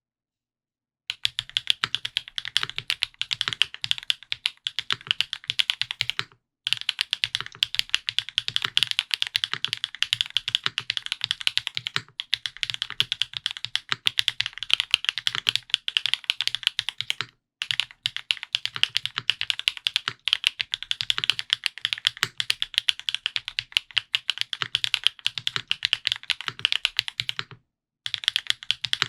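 Fast, continuous typing on an F2-84 custom mechanical keyboard with lubed Gateron Pure Sky linear switches, an aluminium plate and GMK Olivia keycaps: a dense stream of key strikes that starts about a second in and stops briefly four times.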